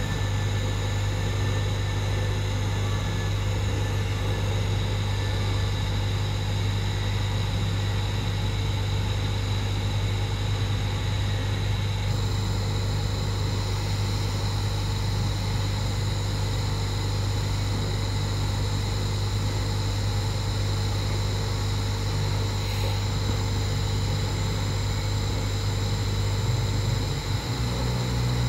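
TIG welding of a titanium tube under way: a steady low hum with an even hiss from the arc and welding setup, holding level with no break. The hum shifts slightly near the end.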